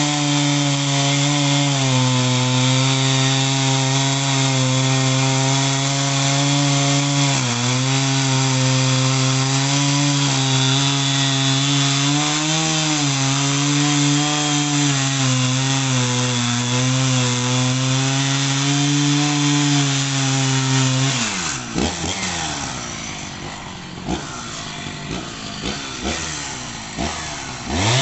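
Two-stroke chainsaw cutting through eucalyptus logs, its engine held at high revs under load. About three-quarters of the way through the throttle is released and the engine drops to a lower running speed with some clattering. It is revved up again near the end.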